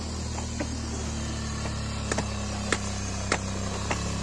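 Motorcycle engine running at low, steady revs as the bike crawls over loose rock, with about half a dozen sharp knocks and clacks at irregular intervals from stones and the bike jolting over them.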